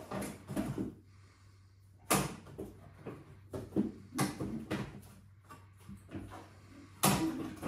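Several sharp knocks and clunks of a door or lid being opened and shut while pigeons are handled, with quiet gaps between. The loudest comes about two seconds in and another just before the end.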